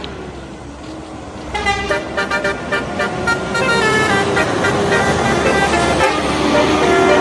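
Indonesian bus telolet horn, a multi-trumpet musical air horn, playing a quick tooting melody of stepping notes over engine and road noise. It starts about one and a half seconds in and grows louder.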